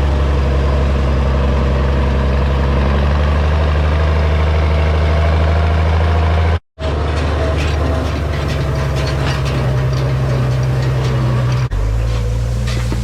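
Tractor engine running steadily during hay field work. The sound cuts out abruptly for a moment about six and a half seconds in. When it resumes the engine is joined by repeated clattering and rattling, and the engine note changes a second before the end.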